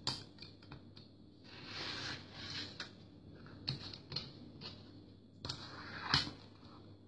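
Rotary cutter and acrylic ruler at work on a cutting mat: scattered light clicks and taps, with a short rasp of the blade slicing through layered fabric about two seconds in. The sharpest click comes about six seconds in.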